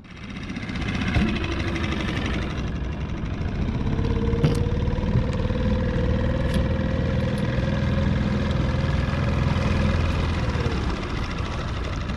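Small outboard motor on a dinghy running steadily under way, coming up in the first second and dropping slightly near the end. A single sharp knock about four and a half seconds in.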